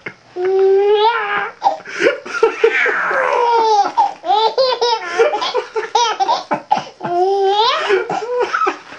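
A baby laughing hard in long, high-pitched peals, with brief pauses for breath.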